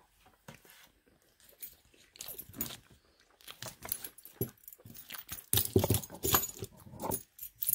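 Brass keys on key rings jangling and clinking against metal mortise lock cylinders as they are handled. The clinks come sparse at first and get busier and louder in the second half.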